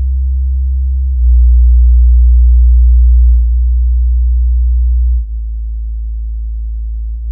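Low bass sine test tones played loudly through a small studio monitor, steady with faint overtones above. The tone steps louder about a second in, eases a little around three and a half seconds, and drops to a quieter, slightly different tone about five seconds in.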